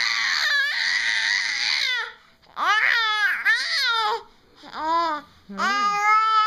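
An infant babbling and squealing in four long, high-pitched stretches with short breaks between them.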